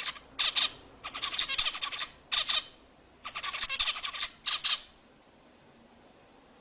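Zebra finch song: a rapid run of short, rasping notes delivered in several quick phrases with brief gaps, stopping about three-quarters of the way through.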